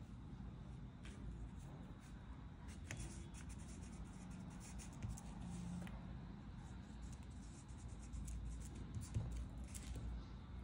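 Pencil writing on paper: faint, scattered scratching strokes as a word is written out.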